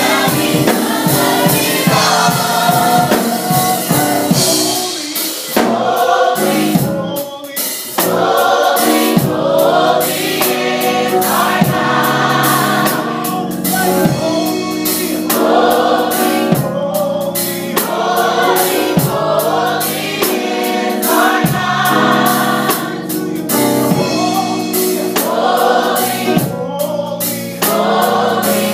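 Gospel choir singing in full voice, backed by drums.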